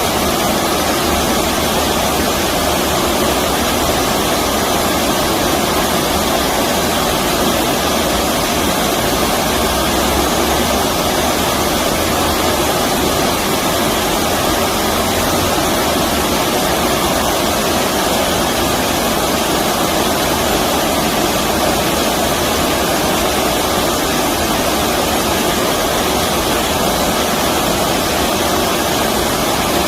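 Stream water rushing over the streambed, a loud, steady, even rush with no breaks.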